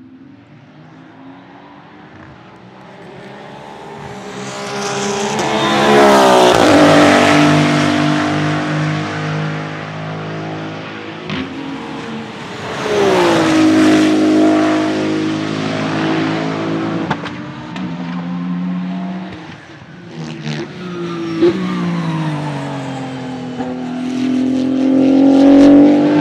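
Maserati MCXtrema's 3.0-litre twin-turbo V6 race engine passing at speed several times. Each pass swells to a loud peak and then drops in pitch as the car goes by, with a few short sharp cracks in between.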